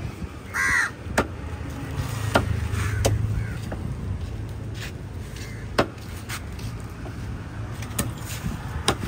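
A crow cawing once, loudly, about half a second in, with fainter calls after it. Sharp knocks sound every second or two, over a steady low hum.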